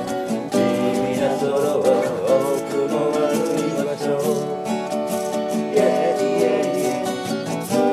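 Acoustic guitar music, with a wavering melody line over the chords.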